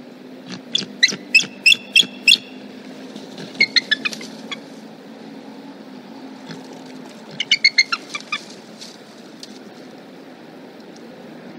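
Bald eagles calling at the nest: three runs of rapid, high, piping chatter notes, the first and last of about seven notes each, over a steady low hum.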